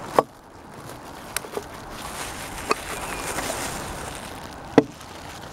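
Camping cook gear being handled: a handful of sharp knocks and clicks, the loudest about a fifth of a second in and near the end, with a soft rustling hiss in the middle.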